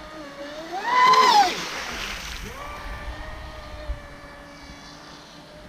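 Traxxas Spartan RC speedboat's brushless electric motor whining. About a second in the whine climbs steeply in pitch and falls back, with a hiss of water spray, then settles to a steadier, lower whine.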